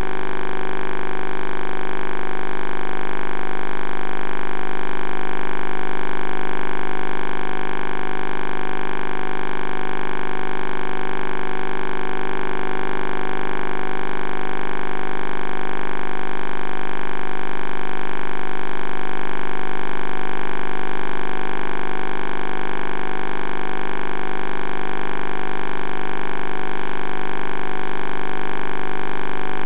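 A steady, loud electrical buzz made of many fixed tones, unchanging in pitch.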